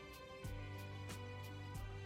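Gentle background music with plucked-string notes picked out in a steady rhythm over a low bass.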